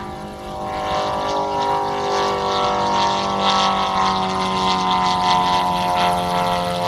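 Light aircraft's piston engine and propeller running at power on departure, growing louder about a second in and then holding steady.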